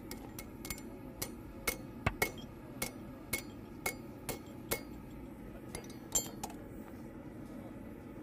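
Hammer striking hot steel on an anvil: a string of ringing metallic blows about two a second, shaping the leaf end of a forged coat hook. The blows stop about five seconds in, after a few lighter taps, leaving a steady low hum.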